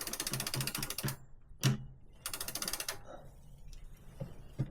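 Tricycle freewheel ratchet clicking rapidly as the crank and chain are turned by hand, in two runs with a single knock between them.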